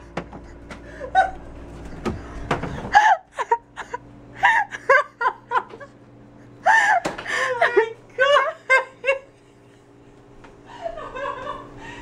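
A woman laughing in fits with gasps for breath, a nervous laugh after a fright.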